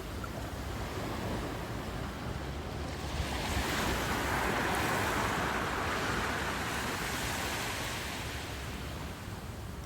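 Ocean surf: a wave breaks and washes up the beach, swelling from about three seconds in and slowly fading, over a low rumble of wind on the microphone.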